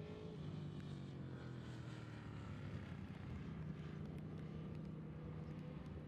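Superbike racing motorcycle engines running on the warm-up lap: a steady low engine drone, with higher engine notes falling just after the start and rising again near the end.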